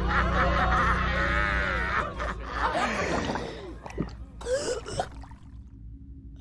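A young woman's voice crying out with wild, wavering laughter-like shrieks, then sinking into gasps and groans and fading away about five seconds in, over a low steady hum.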